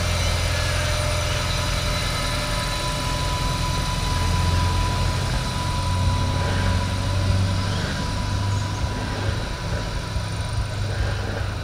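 Adelaide Metro 3000-class diesel-electric railcar running as it pulls away along the track, a steady low engine drone that fades slightly as the train recedes.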